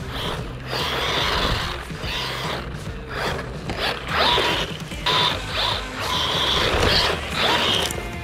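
Xinlehong Q901 1/16-scale brushless RC buggy's motor and metal geartrain whirring in repeated short surges as the throttle is blipped on and off.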